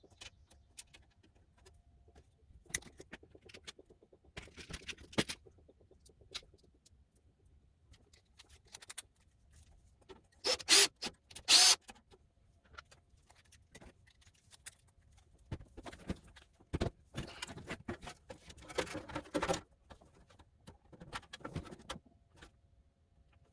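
Hand-work noises of tools and metal parts being handled: scattered clicks, light rattles and scrapes. Two loud, short rasping bursts come close together about ten and a half to twelve seconds in, and a longer stretch of scraping follows.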